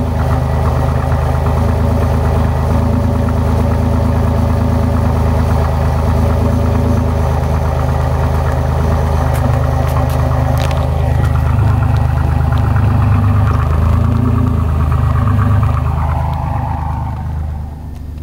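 Chevrolet Camaro engine running steadily at idle, its sound strongest in the low pitches, getting a little quieter near the end.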